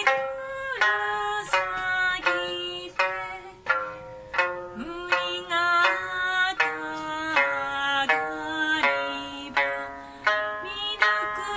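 A woman sings an Okinawan folk song and accompanies herself on a sanshin, the snakeskin-covered three-string lute, plucking a note roughly every half second under her held, bending vocal line.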